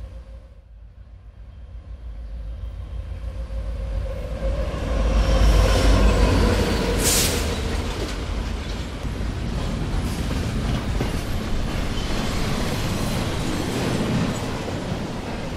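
A train passing close by: a low rumble builds over the first few seconds and peaks about five to six seconds in, with a brief loud hiss about seven seconds in, then goes on as steady rolling rail noise.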